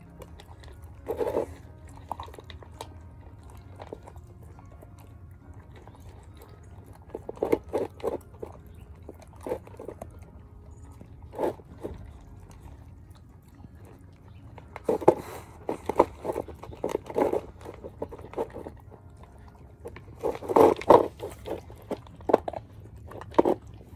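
Two puppies eating dry kibble mixed with vegetables from a plastic bowl, crunching and chewing in irregular bursts with quieter gaps between.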